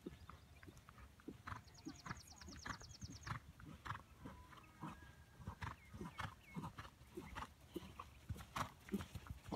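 A horse's hooves thudding on the sand footing of an arena as it canters under a rider, in an uneven run of short dull beats. About two seconds in comes a fast run of high ticks, roughly eight a second, lasting about a second and a half.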